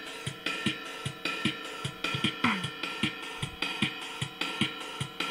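Yamaha DD-10 electronic drum machine playing a steady drum pattern of kick, snare and hi-hat sounds, with a drum sound that falls in pitch about every three seconds. A faint steady hum runs under the beat.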